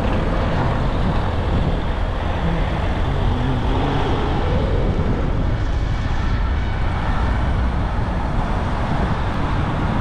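Steady rushing noise from a moving bicycle ride: wind buffeting the microphone, mixed with city road and traffic noise.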